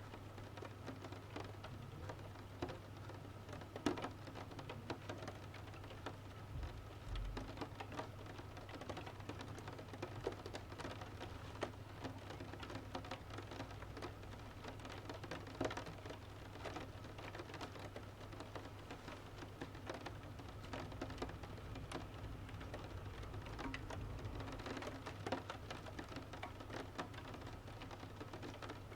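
Rain pattering on a window together with a wood-burning stove crackling: a steady hiss scattered with irregular pops and clicks, over a low steady hum.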